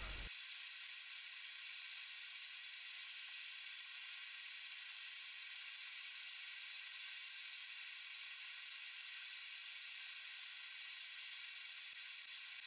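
Steady faint high hiss with no low end and no distinct events: background noise of the sound track, with no tool or forging sounds heard.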